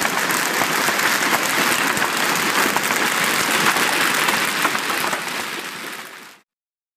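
Dense, steady patter of many small impacts, like heavy hail or clapping, that fades away near the end and then stops into silence.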